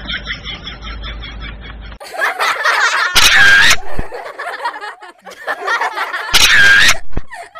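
People laughing. About halfway through, the sound changes abruptly, and two loud identical short sounds follow, about three seconds apart.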